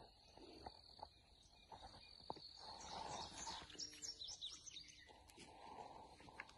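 Faint outdoor ambience: a steady high insect hum, with a songbird giving a quick run of short high chirps about three to five seconds in, and soft footsteps on gravel.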